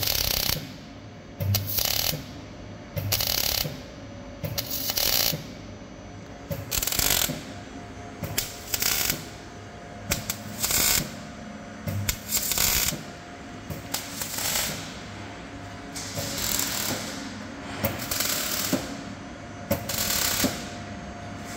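A workshop power tool working in repeated short bursts, each about half a second to a second long, roughly one every second or so.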